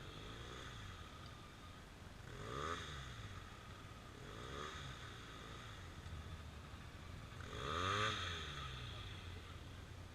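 ATV engine revved four times over a low idle, its pitch rising and falling back each time, the last rev the loudest.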